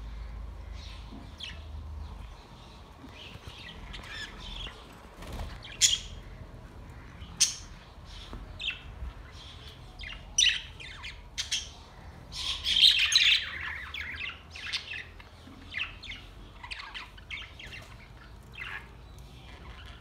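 A flock of budgerigars chirping and squawking in an aviary: many short, high calls from several birds overlapping, with a few sharp louder ones and a dense burst of chatter about two-thirds of the way through.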